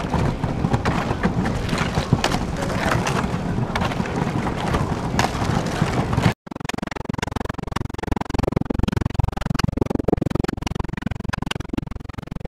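Thin lake ice crackling and crunching as a kayak hull and paddle break through it, a steady run of sharp cracks and skittering ice shards. The sound drops out for an instant about halfway through, then the crackling goes on more quietly.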